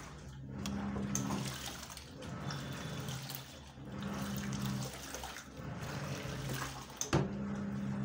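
Hisense 8kg top-loading washing machine in its wash cycle: the motor hums in stretches of about a second with short pauses as the pulsator turns back and forth, and water sloshes around the clothes in the drum. A sharp knock about seven seconds in as the lid is shut.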